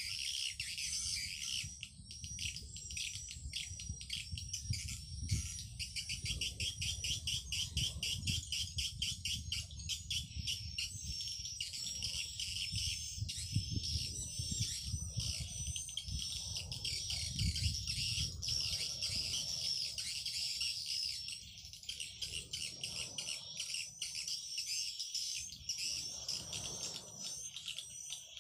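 Swiftlet calling sound: recorded edible-nest swiftlet chirps and twitters played back to lure swiftlets, a dense run of rapid high chirps with a low rumble underneath.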